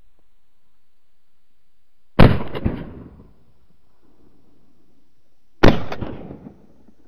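Two shotgun shots about three and a half seconds apart, each very loud and trailing off in echoes over about a second.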